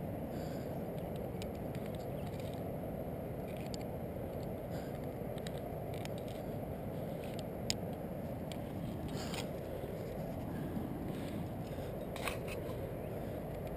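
Steady low rumble on the head-mounted camera's microphone, with scattered scrapes and sharp clicks of a climber's hand and metal quickdraws against a granite crack; the sharpest click comes a little past halfway, another near the end.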